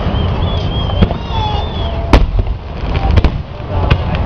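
Aerial fireworks shells bursting in a display: several sharp bangs, the loudest about two seconds in. A high wavering whistle sounds over the first two seconds.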